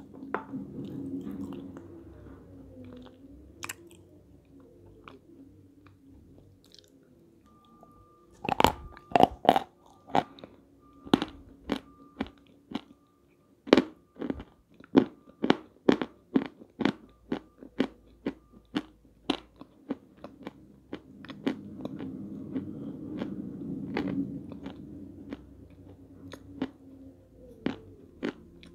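Peschanka, a crunchy edible sandy clay, being chewed in the mouth. From about eight seconds in there is a run of sharp crunches at about two a second, which thins out after about twenty seconds.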